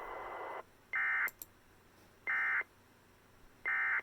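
Emergency Alert System end-of-message data bursts from a NOAA Weather Radio receiver: three identical short buzzy digital tone bursts about 1.4 seconds apart, signalling the end of the weekly test. They follow about half a second of steady radio hiss.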